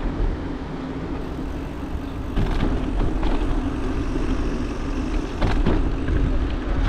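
Bicycle ride noise: steady rumble of tyres and wind on the camera, with a few short knocks and rattles. It gets louder about two and a half seconds in.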